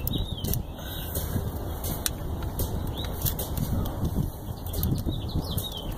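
Steady low rumble with scattered light clicks of a hand tool being handled, and a bird chirping a few times near the middle and again near the end.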